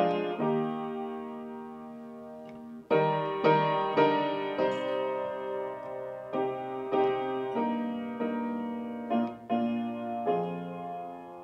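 Solo piano music: slow chords, each struck and left to ring before the next.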